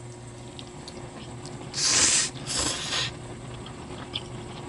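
Spaghetti noodles slurped into the mouth: two short, loud slurps about two seconds in, the second a little shorter.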